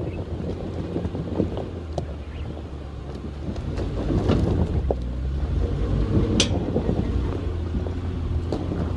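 Nissan Patrol's six-cylinder, non-turbo engine pulling low and steady as the SUV crawls up a rocky slope in first gear, low range. Tyres crunch and knock over loose stones, with wind on the microphone and a sharp click about six and a half seconds in.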